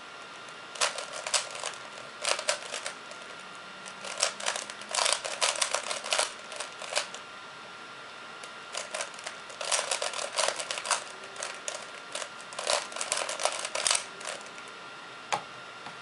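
A plastic 3x3 Rubik's cube being turned by hand, its layers clicking and clacking in quick bursts of moves separated by short pauses, with a last single click near the end.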